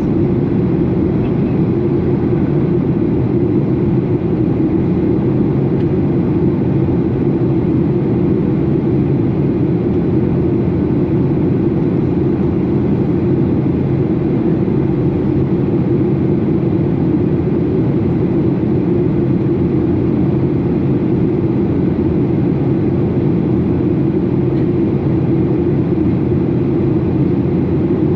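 Steady cabin drone inside a Boeing 737 airliner in flight: engine and airflow noise, a low, even rumble that holds without change.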